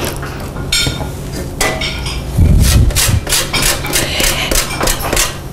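A lemon rubbed against a metal box grater to zest it: a run of short rasping strokes, about three a second.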